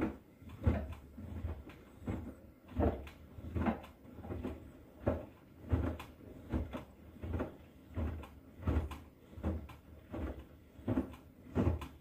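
Bosch Serie 6 front-loading washing machine tumbling a wet carpet in sudsy water. The load sloshes and thuds against the drum about three times every two seconds. This is the early wash phase, with the water still heating towards 40 degrees.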